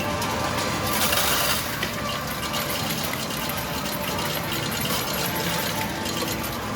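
Gacha Mambo! Jr. medal pusher machine: metal medals clinking and clattering as they are pushed over the edge and drop, with a louder clatter about a second in, against the steady din of an arcade.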